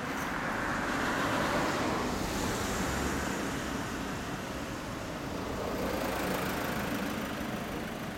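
Cars passing on the road: a steady noise of road traffic that swells and fades twice.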